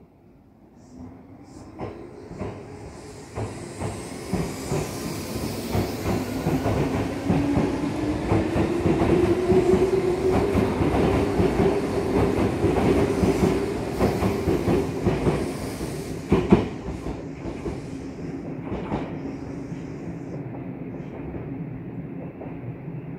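Odakyu 8000 series chopper-control electric train pulling out and accelerating past: a low motor hum rising in pitch over about ten seconds, with wheels clacking over rail joints. The sound peaks in the middle and fades as the last cars pass.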